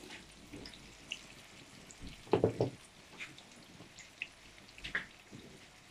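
Sliced onions frying in oil in a pan, a faint, scattered spitting and crackling. A brief knock a little over two seconds in.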